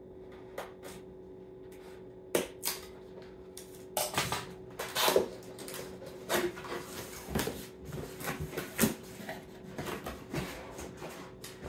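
A taped cardboard shipping box being opened and unpacked. A few separate clicks and knocks come first, then from about four seconds in a busy stretch of rustling and scraping with frequent thumps as the packaging is handled. A faint steady hum runs underneath.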